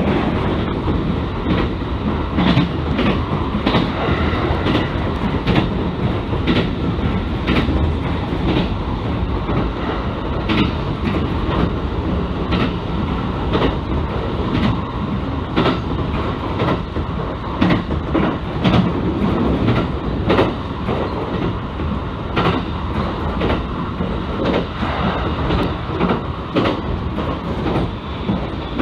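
Train running at speed, heard from inside the passenger car: a steady rumble of wheels on rail, with the clickety-clack of wheels passing over rail joints, often in pairs.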